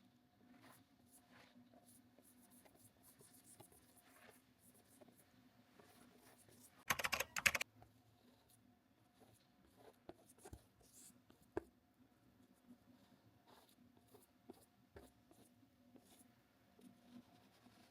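Faint strokes of a paintbrush rubbing on canvas. About seven seconds in comes a brief burst of rapid clicking, the loudest sound.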